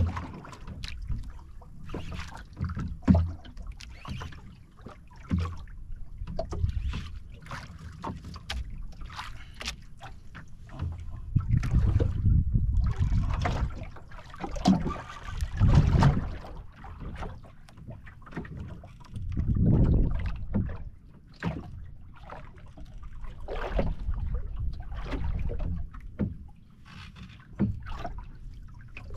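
Water slapping and lapping against the hull of a drifting outrigger fishing boat, with many short knocks and clicks. A low rumble of wind and swell swells up every few seconds.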